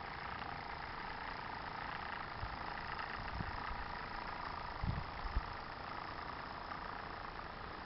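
Small Type 4 Mk3 model steam traction engine running steadily as it drives along hauling a trailer. A few dull low thumps come in the middle, the sharpest about five and a half seconds in.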